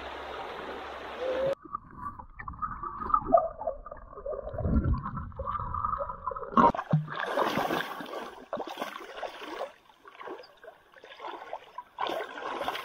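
Stream water gurgling and splashing close to the microphone. The sound is muffled at first with a few knocks, then comes in irregular splashes from about halfway through.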